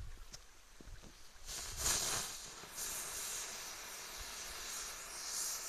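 Keller jumping spinner (Springkreisel) firework hissing as its charge burns, starting about a second and a half in and loudest soon after. It stays lying on the ground pouring out smoke instead of spinning and jumping: a failed spinner.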